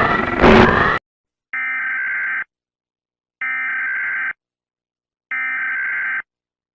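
A loud, noisy sound with gliding tones cuts off about a second in. Then come three identical buzzing electronic data bursts of just under a second each, spaced about a second apart: the digital SAME code bursts of an Emergency Alert System alarm.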